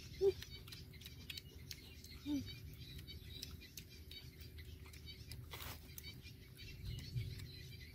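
Two people chewing and crunching food, mostly raw cucumber, heard as many small soft clicks. Two short falling chirps stand out, one just after the start and one about two seconds in.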